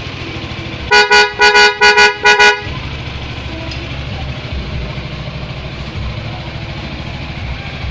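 Six short, loud horn toots in quick succession about a second in, all on one steady pitch, over a motorcycle engine idling.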